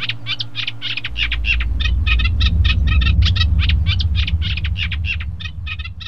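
Canary chirping in a rapid series of short repeated notes, about five a second, with a low rumble coming in about a second in.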